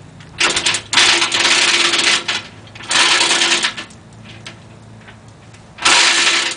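Manual chain hoist being hauled by its hand chain in four spurts, the chain rattling and clattering through the hoist as it takes up the weight of a heavy metal lathe. A short burst comes first, then two long pulls and a last one near the end.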